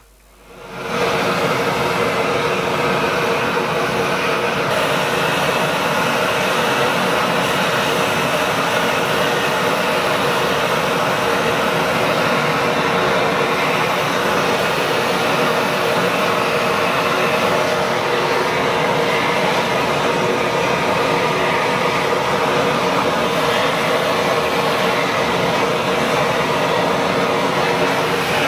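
Propane torch burning steadily with a constant rushing hiss, starting about a second in, as it heats the work to build up background temperature for silver soldering.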